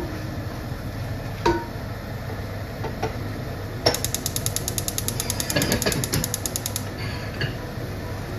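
A wooden spoon stirring chopped beef tripe and offal in a stainless steel pot, with a few sharp knocks against the pot. For about three seconds in the middle there is a rapid, even clicking, like a ratchet.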